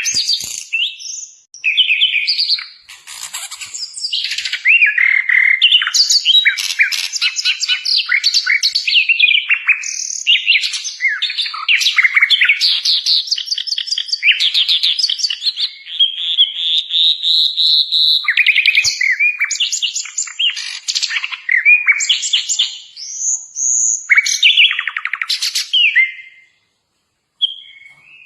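Kincrong bird singing a long, varied song of rapid chirps, trills and clear whistled notes, with a short break about a second long near the end.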